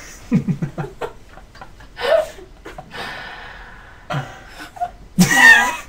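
A man and a woman laughing quietly: short stuttering laughs and breathy gasps, with a louder vocal burst near the end.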